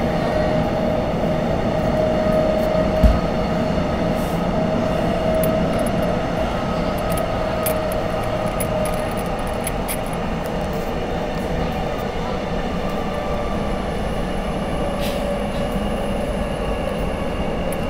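Electric commuter train running between stations, heard from inside the carriage: a steady rumble with a steady motor hum over it and faint ticking. A single knock comes about three seconds in.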